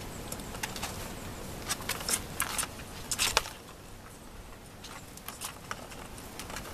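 Kittens batting the ball around a plastic ball-in-track cat toy, with straw rustling under their paws: scattered sharp clicks and rattles, busiest between about one and a half and three and a half seconds in.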